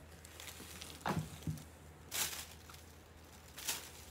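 Polka-dot shoe wrapping rustling in a few short bursts as a pair of black flats is pulled out of it: about a second in, just after two seconds, and near the end.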